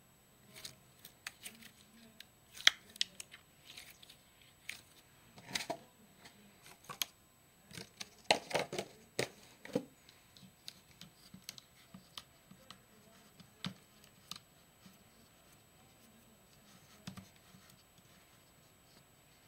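Slime being stretched and squeezed by hand, making scattered sticky clicks and pops. They come thickest in the first ten seconds and more sparsely after.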